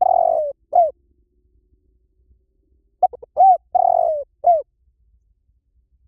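Spotted dove cooing: the end of one phrase just at the start, then a full phrase about three seconds in of a few quick short notes, a longer held coo and a final arched note.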